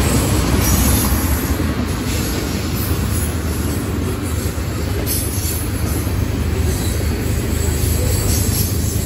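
Freight train of tank cars rolling past close by: a steady rumble of steel wheels on the rails.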